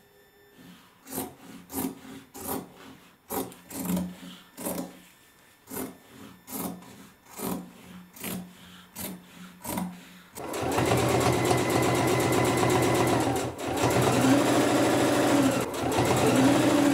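A run of short cutting strokes through denim, about one every two-thirds of a second. About ten seconds in, a sewing machine starts stitching at a steady run, stops briefly once, and its pitch dips and rises a couple of times near the end.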